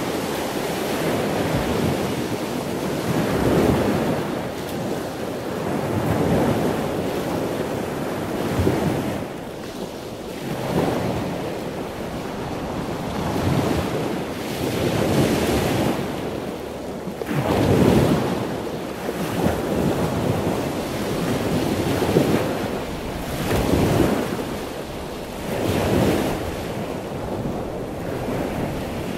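Sea surf washing in, swelling and fading every couple of seconds, with wind buffeting the microphone.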